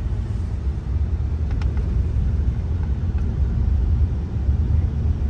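Steady low rumble of a truck driving along a road.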